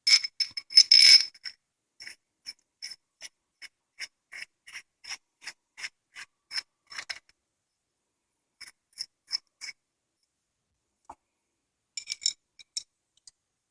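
Metal parts of a Soviet single-speed coaster-brake hub clicking as a cone is screwed onto its thread by hand. A quick flurry of sharp clicks comes first, then a regular run of light ticks, about three a second, and after a pause a few more.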